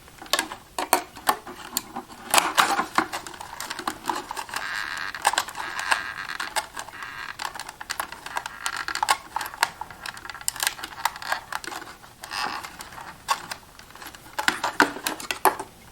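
Irregular plastic clicks and knocks, with a scraping rustle in the middle, as a UV fluorescent tube is handled and worked into the twist-lock lamp holders of an Accubanker D64 counterfeit detector.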